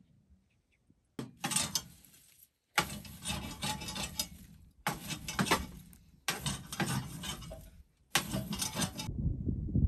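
Someone blowing into the open firebox of a small wood stove to fan the embers into flame: five long breaths of about a second each, with short pauses between them.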